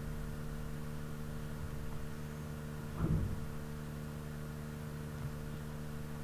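Steady low electrical hum of several held tones, with one brief soft sound about three seconds in.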